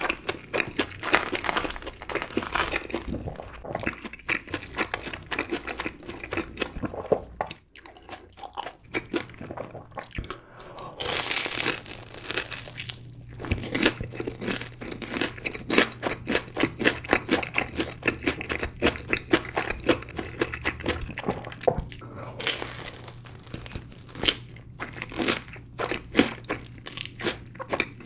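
Close-miked crunching and chewing of a deep-fried Korean corn dog with a crisp breadcrumb-and-sugar crust under cheddar cheese sauce: rapid crisp crunches that keep going.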